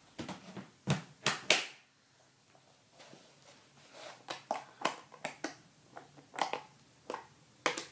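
Handling noises close to the microphone: irregular sharp clicks and knocks with short quiet gaps, the loudest cluster about a second in.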